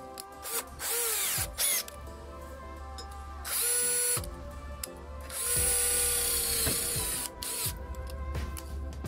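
Cordless drill running in three short bursts, each spinning up and winding down, as the bit works into an aluminium block. Background music plays throughout.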